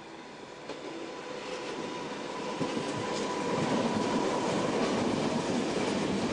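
Electric passenger train approaching and passing close by on the tracks: a rumble of wheels on rail that grows over the first few seconds and stays loud as the coaches go past, with a few clicks over the rail joints and a thin steady whine over it.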